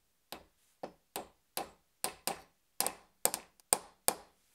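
About a dozen light hammer taps driving a glued wooden dowel down into its hole in a pine board, roughly two to three a second and getting louder toward the end, some struck in quick pairs.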